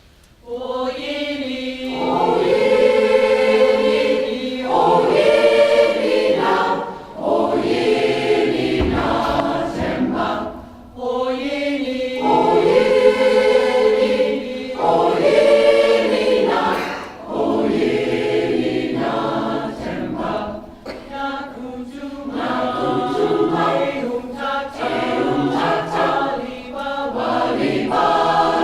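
Community choir singing in harmony. The choir comes in about half a second in and sings in phrases, with short breaks between them.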